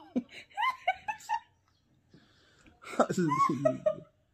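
A woman laughing: a run of short giggles early on, then a louder burst of laughter about three seconds in.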